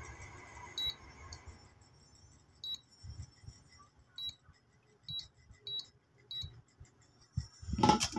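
Short high beeps from a Dual induction cooker's touch control panel, six or so at irregular intervals, after a steady hum fades out in the first two seconds. A loud clatter of handling comes near the end.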